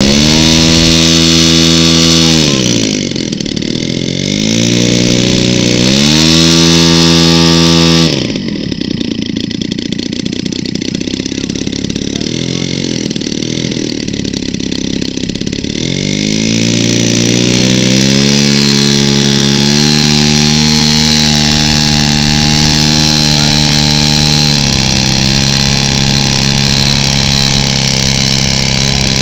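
Giant-scale RC plane's engine and propeller running on the ground: revved up and back down twice, idling low for several seconds, then brought up to a steady higher throttle that holds for the rest, with a small step down near the end.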